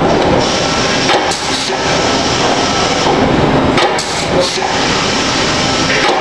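Floor-standing C-frame press machine working along the edge of a sheet-metal panel, with short sharp bursts about a second in and again around four seconds in over steady, loud machine noise.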